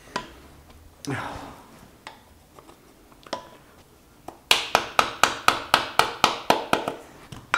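Hammer striking a steel drift against the seized pivot pin of an Elliott 10M shaper's swivel head. A single knock at the start and another about a second in, then from about four and a half seconds in a quick run of about fourteen ringing metal-on-metal taps, some five a second.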